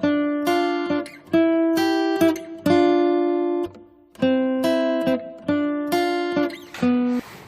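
Background music: acoustic guitar playing sustained chords, struck about once or twice a second, with a short pause about four seconds in.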